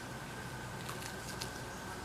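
Quiet room tone: a steady low hum with a thin, faint high tone, and a few soft clicks about a second in.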